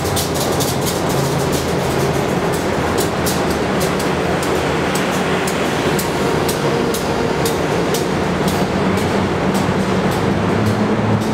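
A diesel-electric locomotive work train rolling through an underground subway station: wheels clicking over rail joints, the clicks spacing out as the end of the train goes by, over a steady low drone with a few held tones.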